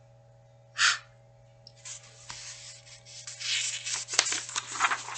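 A breathy aspirated "h" sound just under a second in, then the pages of a picture book rubbing and rustling as they are turned, for about three seconds.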